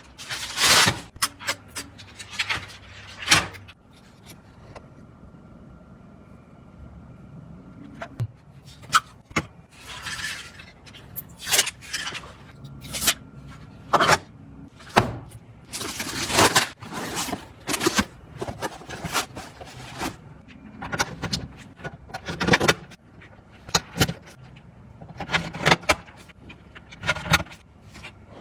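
Computer parts being handled and fitted together: irregular sharp clicks, taps and short scrapes of plastic and metal, sometimes several in quick succession, with quiet gaps between.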